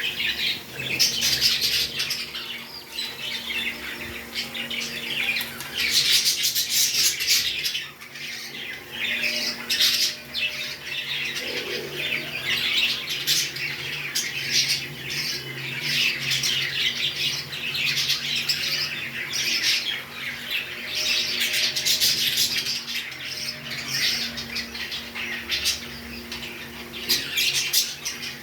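Pet parrots chirping and squawking, with many short, rapid calls overlapping throughout, over a faint steady low hum.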